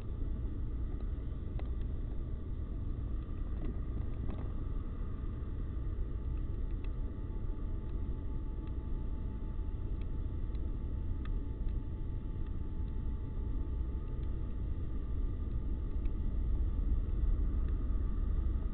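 Low, steady rumble of an approaching diesel freight locomotive, growing slowly louder as it nears.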